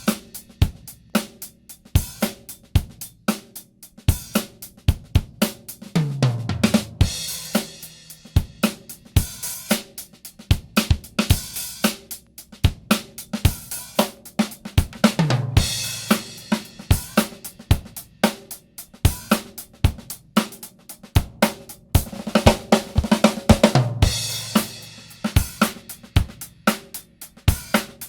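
Drum kit recording with kick, snare, hi-hat and cymbals playing a steady groove through a Mother WAI 2950 three-band EQ, a Siemens W295 reissue. The pattern repeats about every nine seconds, and each time a low tone falls in pitch.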